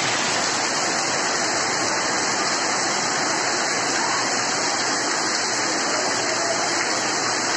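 Floodwater gushing through a gap beside a fence and splashing into a flooded yard: a steady rushing and splashing of water.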